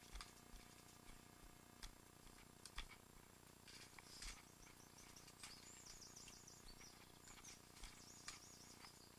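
Near silence: a small bird sings faint phrases of high, quickly repeated chirping notes from about halfway through, over a few scattered faint clicks.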